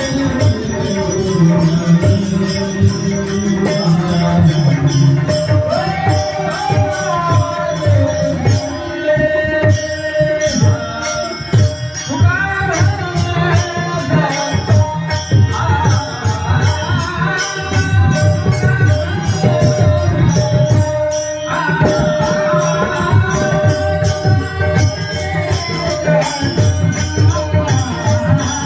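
Varkari bhajan: a male voice singing an abhang over a steady held drone tone. Fast, even hand-cymbal strokes and low drum beats keep the rhythm, with the cymbals dropping out briefly about nine seconds in.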